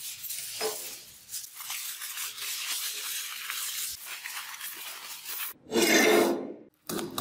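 Aluminium foil being crumpled and squeezed into a ball by hand, a dense crinkling and crackling. Near the end a louder noise lasting about a second.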